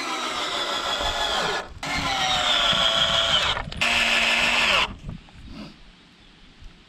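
Power drill run in three bursts of a second or two each, the motor pitch sagging slightly under load as it drives screws into wooden boards. Then a few faint knocks.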